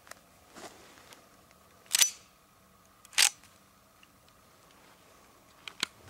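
Two sharp metallic clicks about a second apart, then two fainter clicks near the end, from a handgun being handled in a gloved hand; no shot is fired.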